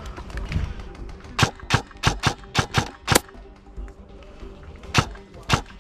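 Airsoft rifle shots: a quick string of seven single sharp cracks about a third of a second apart, then two more near the end, over faint background music.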